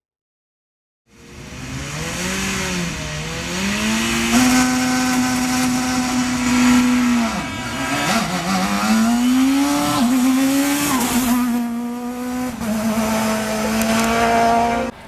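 A rally car's engine at high revs on a stage. The pitch climbs, is held high, dips sharply twice near the middle as the driver lifts or changes gear, then climbs and holds again. It starts after a second of silence and cuts off abruptly at the end.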